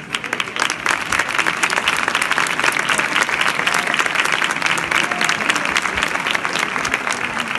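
Large street crowd applauding, the clapping swelling in the first second and then holding steady.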